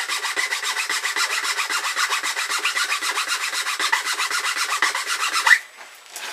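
Small triangular file rasping rapidly back and forth across a wooden crossbow stock, about seven strokes a second, cutting a groove for a nail to sit in. The filing stops about five and a half seconds in.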